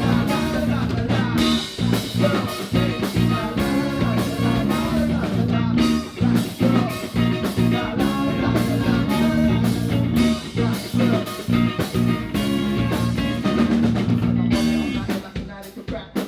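Live music from a band playing a medley, loud and steady with a regular beat, dropping briefly near the end.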